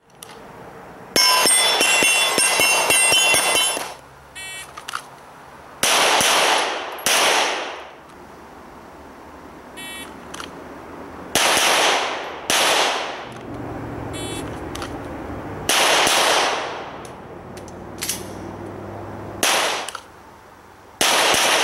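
Gunshots from a 9mm Smith & Wesson M&P Pro pistol fired in quick strings. There are four strings a few seconds apart, each with two loud reports about a second apart, and each report trails off in a short echo.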